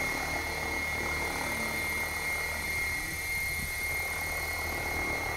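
Electric Assault 700 RC helicopter hovering: a steady rotor hum with a constant high whine from the motor.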